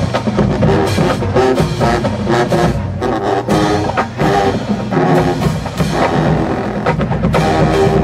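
Marching band playing: brass with sousaphones on the low line over a drumline, sharp drum hits punctuating the tune.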